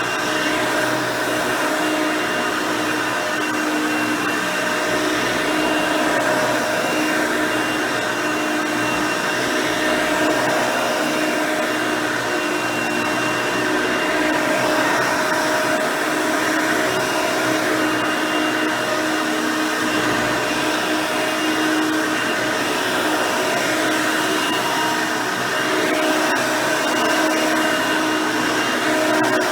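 Hoover Elite 350 upright vacuum cleaner running steadily, its 5-amp motor with the original nine-blade fan giving an even whir with several steady tones, the level wavering a little as it works.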